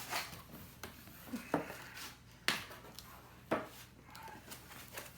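Handling of a hot air station's briefcase-style carrying case and its contents: a few separate sharp clicks and knocks, about one a second, as the case is opened and items inside are moved.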